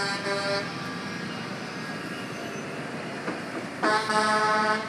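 Tow truck horns honking: a short blast at the start and a longer one, about a second, near the end, over the steady sound of the passing trucks' engines.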